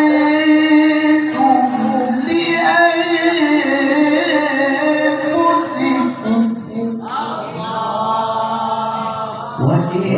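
A male qari's melodic Qur'an recitation (tilawah) through a handheld microphone, in long held, ornamented phrases with a new phrase about seven seconds in and a short breath near the end. His voice is hoarse.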